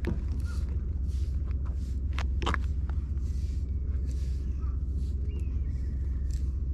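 A slicker brush drawn through a cat's fur in soft, scratchy swishes, with a few sharp clicks of handling, the loudest two just after two seconds in. Under it runs a steady low rumble.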